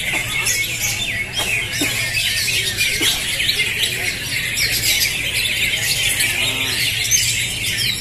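Many caged green leafbirds (cocak hijau) singing at once in competition, a dense, unbroken chorus of overlapping chirps, whistles and harsh chatter.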